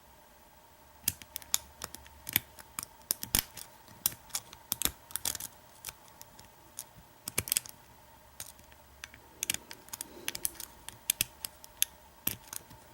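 Lock pick and tension wrench working the pin stack of an American 1100 padlock during single pin picking: irregular sharp little clicks and ticks, starting about a second in, some in quick clusters.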